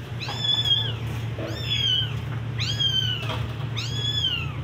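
Young, hungry kitten mewing four times in high-pitched cries, each rising and then falling in pitch.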